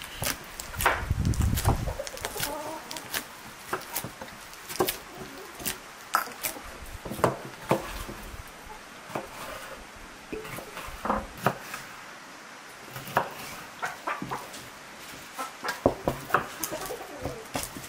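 Irregular knocks and taps of hand food preparation: a knife chopping on a wooden board and dough being pressed and kneaded in a metal bowl. Chickens cluck in the background.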